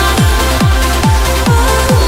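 Electronic dance music with a fast, steady kick-drum beat and synth lines.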